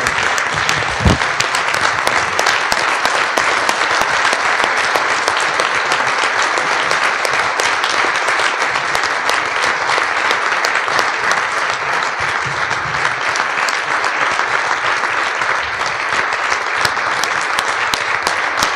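Audience applauding: dense, sustained clapping that keeps on steadily, with a low thump about a second in.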